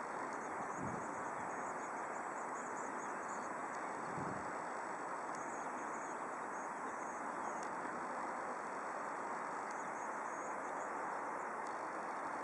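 Distant steady jet-engine noise from an Airbus A319 taxiing at low power, with faint insects chirping in the grass.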